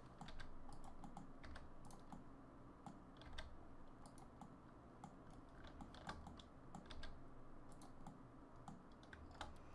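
Computer keyboard keys and clicks tapping faintly and irregularly, a few strokes a second at most.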